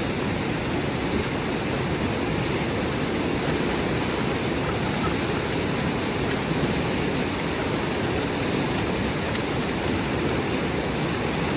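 Fast-flowing Spiti River rushing steadily, a strong current of snow-fed water.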